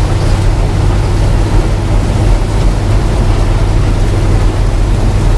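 New Holland TR70 combine's gasoline V8 and machinery running, a loud, steady, even drone.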